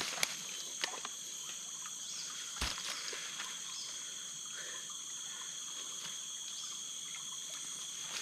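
Insects droning steadily in two even high-pitched tones, with a few faint clicks and a single knock about two and a half seconds in.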